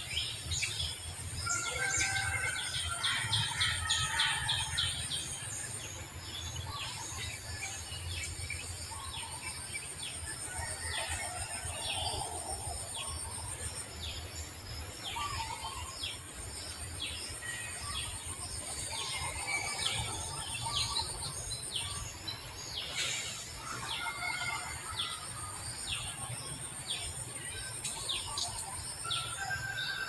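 Birds chirping and calling, many short chirps overlapping, with a high steady insect buzz that runs in stretches of several seconds and breaks off between them.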